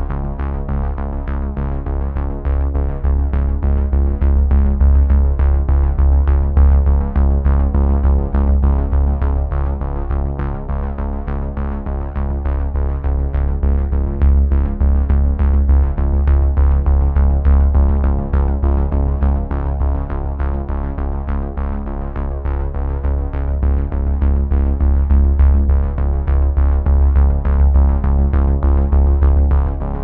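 Background music with a steady beat and a sustained deep bass.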